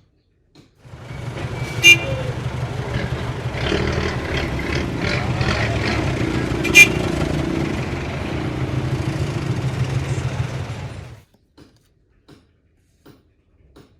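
A vehicle engine rumbling steadily for about ten seconds, with two brief sharp sounds about five seconds apart, cutting off suddenly.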